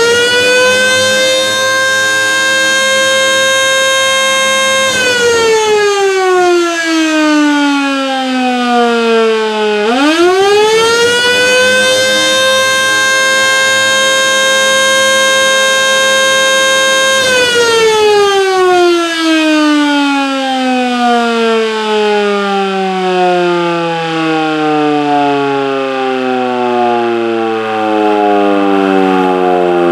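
Electromechanical civil defense siren run by an AR timer on the attack signal: it winds up to a steady high tone and holds for a few seconds, then coasts down in pitch. About ten seconds in it winds up again, holds, and coasts down slowly through the rest.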